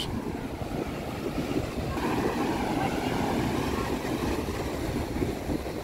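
Wind buffeting the microphone over the steady wash of rough surf breaking on a beach.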